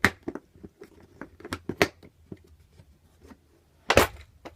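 Plastic tackle box and the fishing tackle in it being handled: scattered clicks and clacks, with a heavier knock about four seconds in.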